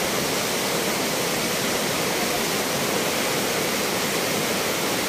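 Steady rush of white water pouring over rocks in a river's rapids below a waterfall.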